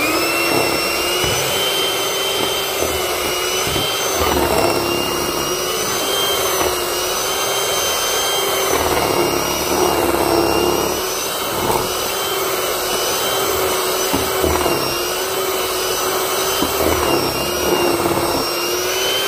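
Electric hand mixer running steadily, its two beaters whipping a thick bowl of shea butter; a motor whine whose pitch wavers slightly as the beaters work through the butter. It switches on at the start and cuts off at the end.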